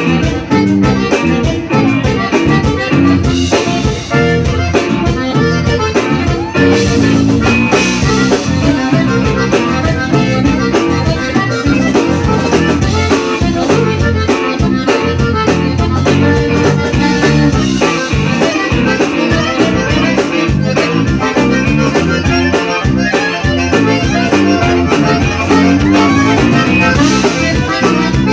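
Live conjunto band playing an instrumental passage: two button accordions carry the melody over electric bass, guitar and drums, with a steady beat.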